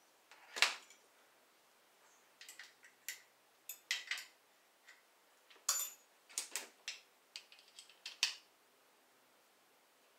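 Irregular light metallic clinks and clicks of hand tools and small metal parts during work on a small quad's engine. One sharp clink comes about half a second in, then a scattered run of them from about two to eight seconds in.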